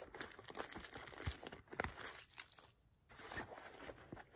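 Plastic wrapping crinkling and rustling as a packaged face mask is pushed into a handbag compartment, with small taps of things inside the bag. The rustling comes in two spells with a short pause between them.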